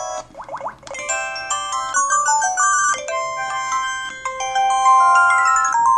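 LG KP3500 mobile phone playing a built-in polyphonic ringtone through its speaker: a few quick rising sweeps, then a bright electronic melody of clean, held notes.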